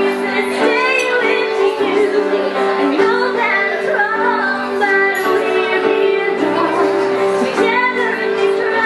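Live music: a woman singing into a microphone over a Casio Privia digital piano playing held chords.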